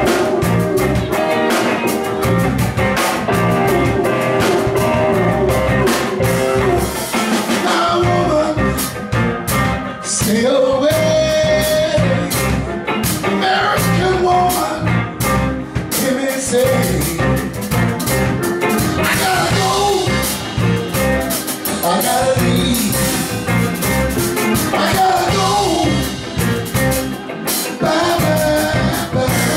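Live rock band playing loudly: electric guitars, bass, keyboard and drums, with a lead line that bends up and down in pitch about ten seconds in.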